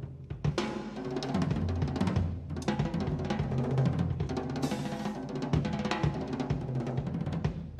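Background music: a recorded jazz drum solo on a full drum kit, with quick dense snare and bass drum strokes and rolls.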